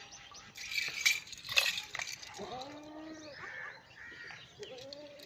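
Rustling and a few knocks, then, from about halfway through, goats bleating: several short, wavering calls, some overlapping.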